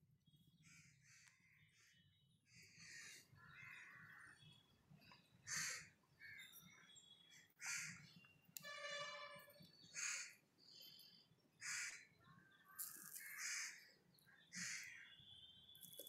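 Faint crows cawing, a string of short calls every second or so.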